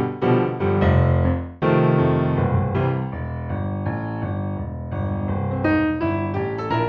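Background music played on a piano-like keyboard, a run of sustained notes and chords changing every second or so.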